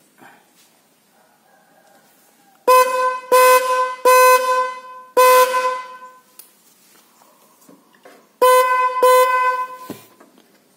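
A single 510 Hz snail-type electric horn on a motorcycle, wired straight to the stock horn lead without a relay, honking six times: four short blasts in quick succession, then two more after a pause of about two seconds. It is quite loud even without the relay.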